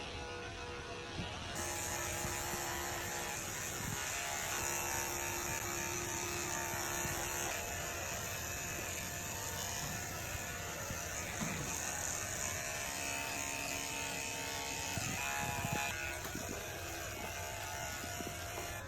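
Electric pet grooming clippers buzzing steadily, louder from about a second and a half in.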